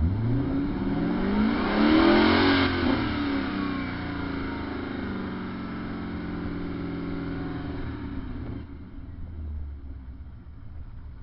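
Engine of a wedge-shaped TVR convertible being revved while parked: the revs climb sharply in the first two seconds, peak, then fall back and hold at a steady lower speed. The sound becomes quieter near the end.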